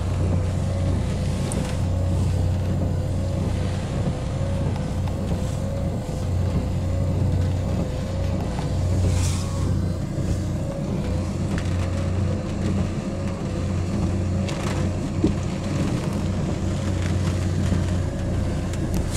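Car engine running at idle, heard from inside the cabin as a steady low hum with a faint wavering tone above it. Rain and wind make a faint hiss on the car, with a few soft knocks.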